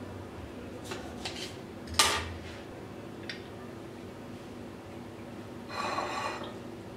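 A knife cutting through a lemon on a stone countertop, with a few clicks and one sharp knock of metal on stone about two seconds in. Near the end, a hand-held lemon squeezer is pressed shut, with a short squelching hiss of juice.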